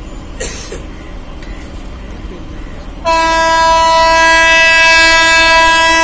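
Triple-tone horn of an approaching WAP-7 electric locomotive sounding one long, steady blast. It starts about three seconds in, after quiet platform ambience, and is much the loudest sound.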